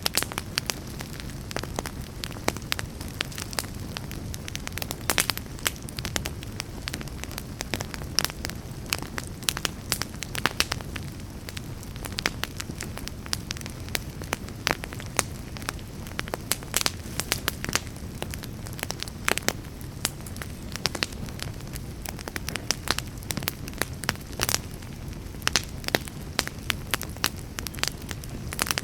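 Wood fire burning in a fireplace: a steady low rumble of flame with frequent sharp crackles and pops scattered throughout.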